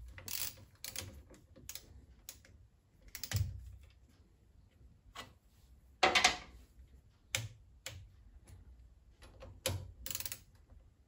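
Irregular metallic clicks and knocks of hand tools as the bolts holding a rear tool post mount to a Myford Super 7 lathe's cross slide are nipped up and torqued, with a few sharper clicks standing out among fainter ticks.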